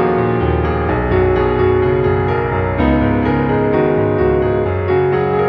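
Background music, steady throughout, with sustained notes and chords changing every second or so.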